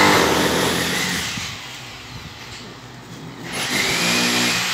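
Plastic wrapping and bubble wrap crinkling as it is pulled off a small radio. An engine runs in the background, fading after the first second and growing louder again near the end.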